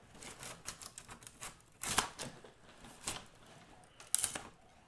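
Split fiberglass tent spar being pulled and worked out through a metal shelter hub by hand: an irregular run of clicks and scrapes as the splintered rod catches, loudest about two seconds in and again near the end.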